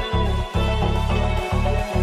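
Background music with a pulsing bass line and a steady beat.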